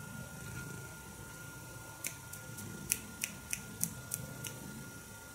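Cat chewing dry food: a run of about nine short, sharp crunches, about three a second, starting about two seconds in and stopping near the end.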